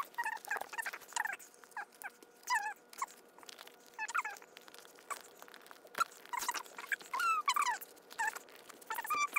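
A girl's voice sped up about four times, turned into high, squeaky chipmunk-like chatter in short bursts of syllables.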